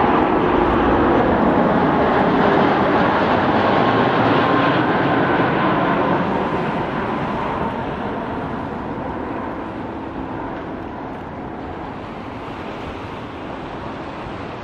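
Airbus A330 jet on final approach passing close by: a loud, even jet-engine rush with a faint steady whine. It fades gradually from about six seconds in as the aircraft draws away.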